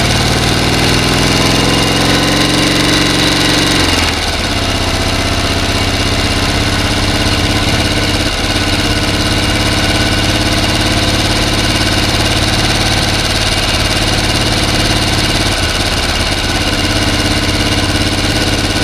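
A motor running continuously. Its pitch rises over the first few seconds, shifts briefly about four seconds in, and then holds steady.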